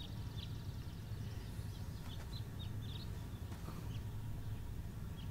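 Small birds chirping, short high chirps at irregular intervals, over a low steady background hum.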